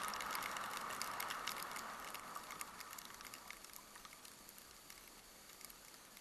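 Skis sliding on snow: a steady hiss with scattered fine clicks that fades over the first few seconds as the skier slows down and stops.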